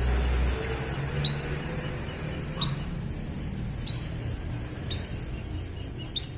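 Canary giving five short, sharp chirps about a second apart, each a quick upward flick, over a steady low hum.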